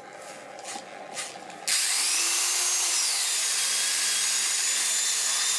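Dremel 3000 rotary tool's brushed motor starting hesitantly after a few faint clicks. It catches about two seconds in with a high whine that rises, dips in pitch, then settles to a steady run and cuts off at the end. The owner puts the hard start down to carbon brushes not seated right after the repair.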